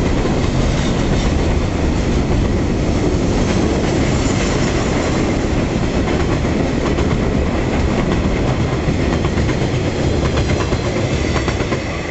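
Freight train wagons rolling past on the track, the wheels clicking over rail joints in a steady loud rumble that begins to fade near the end.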